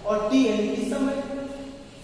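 A man's voice speaking, drawing one word out into a long, nearly level held tone, with a short hiss partway through.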